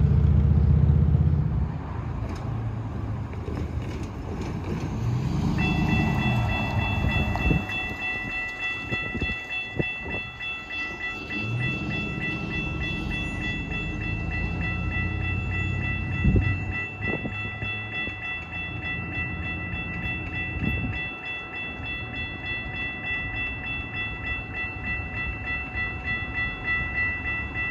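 Railroad grade-crossing warning bell ringing steadily, starting about five seconds in, over passing road traffic and a few dull thumps. A loud low rumble cuts off at the start.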